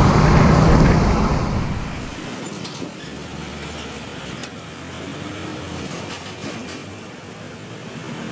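A road vehicle passing close by, loud at first with a deep rumble, then fading away within about two seconds and leaving quieter steady traffic noise.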